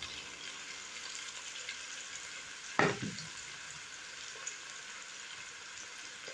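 Chopped red onions sizzling steadily in hot oil in a frying pan, the fine crackle of onions starting to soften. There is a single short knock about three seconds in.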